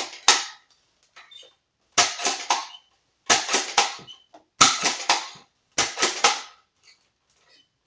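Spring-powered Nerf dart blaster being primed and fired shot after shot: five quick clusters of sharp plastic clacks, a little over a second apart, with a few faint clicks in between.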